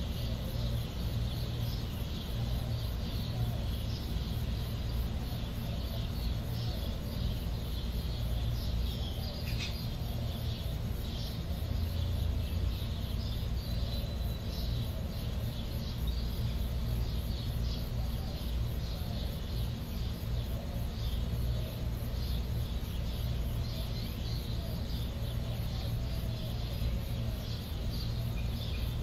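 Nature ambience of many small, high chirps going on without pause over a steady low hum.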